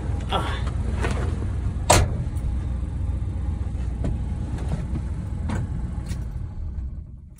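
Old Chevrolet pickup truck's engine idling, heard from inside the cab, then switched off near the end and dying away. There is a sharp click about two seconds in.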